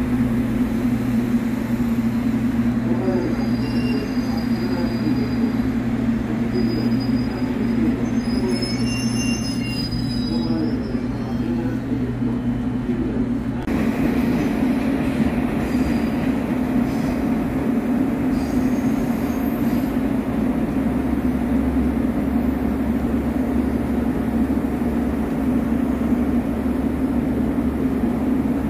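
JR Kyushu 783 series electric train close by at the platform, with a steady low hum from its electrical equipment. A few brief high-pitched squeaks come about eight to ten seconds in, and the hum changes in character about halfway through.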